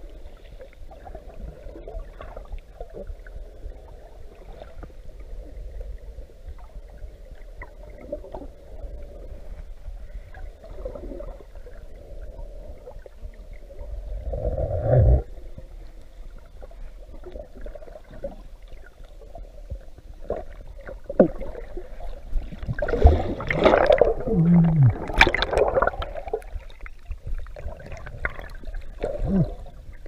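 Muffled underwater sound of water moving around a camera held below the surface: a steady low rumble and sloshing, one louder swell about halfway through, and a cluster of louder muffled sounds with a short falling tone a little past two-thirds of the way in.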